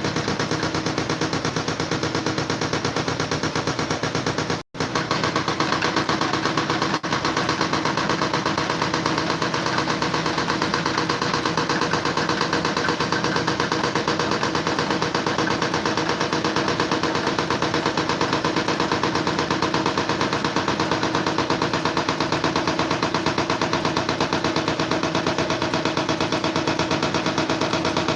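A loud, rapid, steady rattling clatter of many strokes a second, broken only by a sudden brief dropout about five seconds in and a smaller one about two seconds later.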